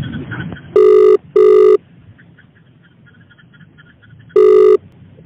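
Telephone ringback tone heard down a phone line as a call is placed: a steady pitched double ring, a pause of a couple of seconds, then one more ring burst, with faint line hiss between.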